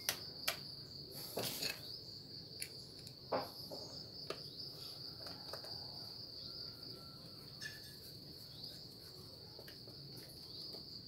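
Light clicks and knocks of metal parts being handled and fitted on a brush cutter's two-stroke engine, a few scattered taps over several seconds. A steady high-pitched trill runs underneath throughout.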